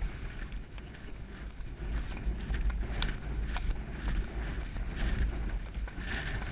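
Horse hoofbeats on a grassy dirt track, heard from the saddle as an uneven run of dull strikes, over a steady low rumble.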